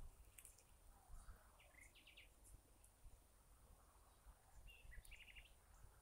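Faint bird calls: a short phrase of quick, high chirping notes, heard twice, about two seconds in and again about five seconds in, over a faint low rumble of wind on the microphone.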